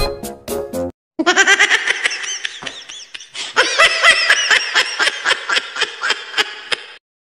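High-pitched laughter in quick repeated bursts, starting about a second in after a short jingle stops and cutting off abruptly near the end.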